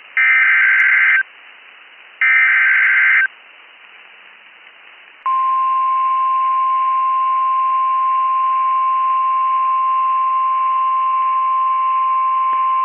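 NOAA Weather Radio Emergency Alert System tones: the last two of the three SAME digital header bursts, each about a second of harsh electronic data screech with a second's gap between, then about five seconds in the steady single-pitch warning alarm tone begins and holds. The tones announce that a warning is about to be broadcast.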